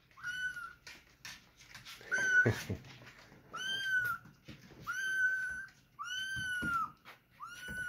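Young kittens meowing: a string of six thin, high-pitched calls, each rising then dipping slightly, coming about every second and a half. There are a few soft low thumps near the loudest call, a little over two seconds in.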